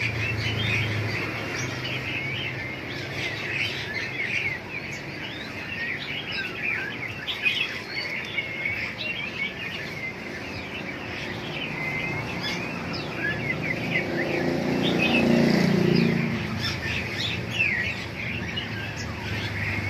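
Many caged small birds chirping and calling over one another in a steady, dense chorus. About two-thirds of the way through, a low rumble swells for a couple of seconds and fades.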